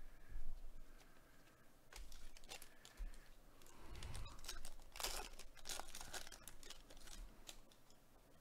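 Foil wrapper of a Panini Select baseball card pack being torn open and crinkled by gloved hands: faint crackling rustles, busiest from about five to six and a half seconds in.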